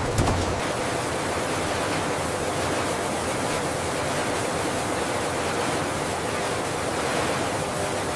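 Steady, even rushing noise of a processing line's conveyors running, with a faint hum.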